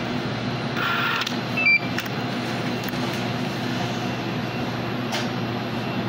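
Steady low mechanical hum. Over it, a clear plastic food tray is handled: a crackle of plastic about a second in, then a sharp plastic knock just before two seconds.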